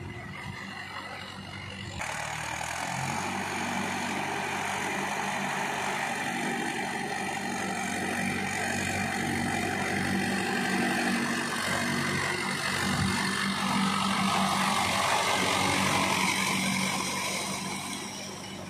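Mahindra 595 DI tractor's diesel engine running steadily under load as it pulls a rotary tiller through flooded, muddy paddy, the tiller churning the mud and water. The sound steps up about two seconds in, grows louder toward a peak past the middle and fades near the end as the tractor passes.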